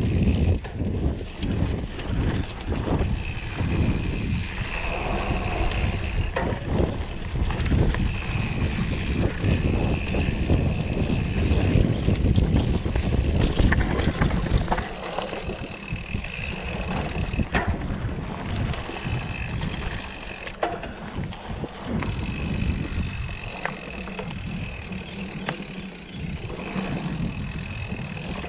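Mountain bike rolling down a dirt singletrack: wind buffeting the microphone and the tyres rumbling over the ground, with frequent knocks and rattles from the bike over bumps. The rumble is heaviest in the first half and eases after about fifteen seconds.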